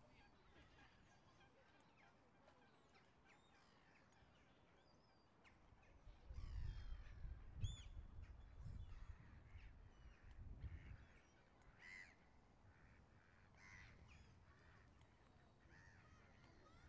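Faint outdoor ambience of scattered bird calls, with a low rumble swelling up for a few seconds in the middle.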